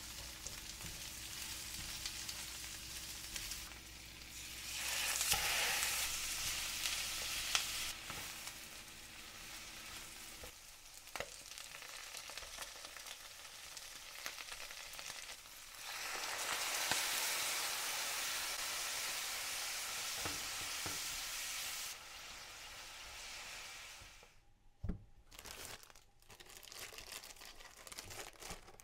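Food sizzling as it fries in a pan. The hiss swells louder twice, then dies down near the end with a couple of sharp knocks.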